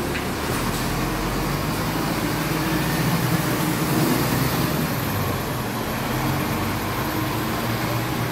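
Wright StreetCar articulated bus on a Volvo B7LA chassis driving past and pulling away, its diesel engine running steadily and swelling slightly as it passes.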